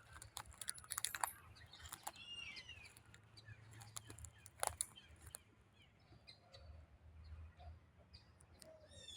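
Birds chirping with short curved calls, among scattered sharp clicks and crackles.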